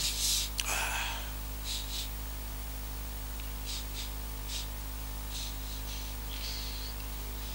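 Steady electrical mains hum through the church's microphone system, with a breathy exhale near the start and a few short, faint rustles picked up by the handheld microphone.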